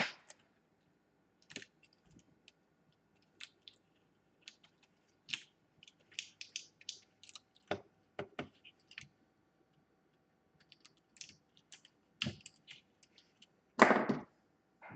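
Kapton tape being handled and pressed down by hand: scattered small clicks and crackles at an uneven pace, with a louder brief crackle about fourteen seconds in.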